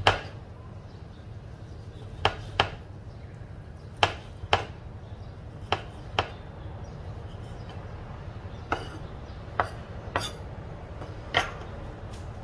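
Kitchen knife chopping raw pork on a thick round wooden chopping block: sharp, separate knocks of the blade on the wood, about a dozen at an uneven pace, several coming in pairs about half a second apart.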